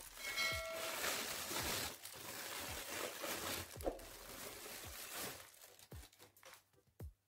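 Thin plastic wrap crinkling and rustling as it is peeled and pulled off a watch by gloved hands, thinning to a few light crackles near the end. A brief chime-like tone sounds just after the start.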